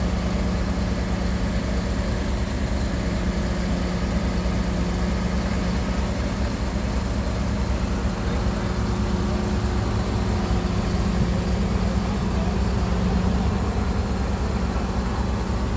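Ponsse Buffalo forwarder's diesel engine running steadily at a constant speed, a low even drone with no changes in pitch.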